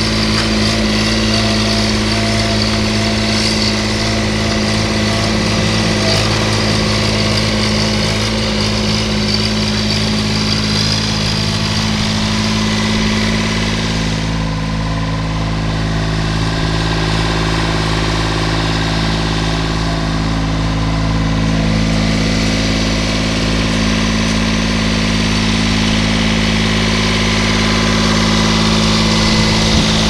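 Bobcat S70 skid-steer loader's small three-cylinder diesel engine running steadily while the loader drives and lifts its bucket.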